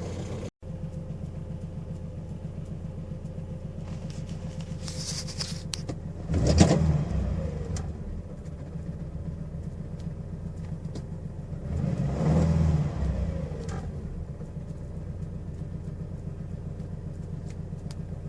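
2.2-litre engine idling steadily after a timing chain job, revved briefly twice, about six seconds in and again about twelve seconds in. The sound drops out for a moment about half a second in.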